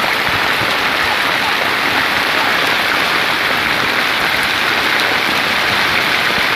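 Heavy rainstorm at sea: rain falling steadily, a dense, even hiss.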